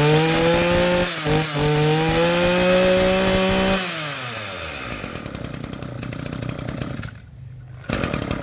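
Kioritz (Echo) brush cutter's small two-stroke engine, freshly started and held at high revs with its pitch slowly climbing, stumbling briefly about a second in. About four seconds in the pitch drops and it settles to a rougher idle, dipping briefly near the end before running on.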